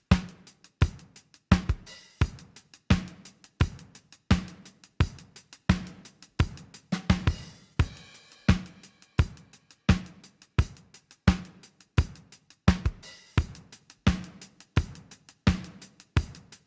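Drum kit groove playing a steady beat of kick, snare, hi-hat and cymbal hits with short, tight decays.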